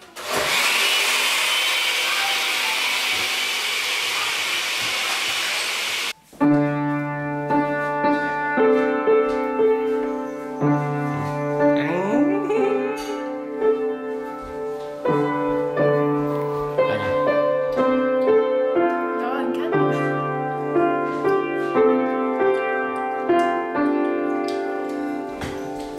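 A steady rushing noise for about six seconds that cuts off abruptly, followed by background keyboard music with sustained chords and a low bass note returning every few seconds.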